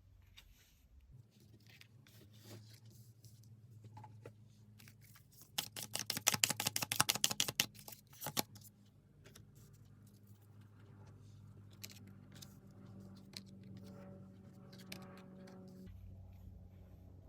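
Tarot cards being handled and shuffled: scattered soft card rustles and clicks, with a fast run of card clicks lasting about three seconds near the middle, over a low steady hum.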